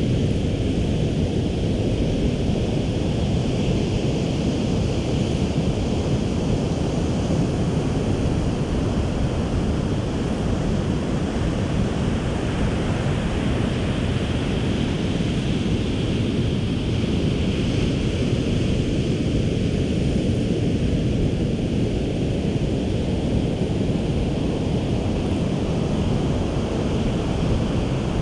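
Ocean surf on a beach mixed with wind on the microphone: a steady, low-pitched wash of noise with no separate wave crashes standing out.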